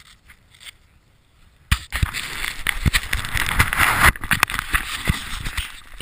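Riding fast through snow: a loud hiss of snow and wind buffeting the microphone starts suddenly about two seconds in, with many sharp knocks and bumps against the camera.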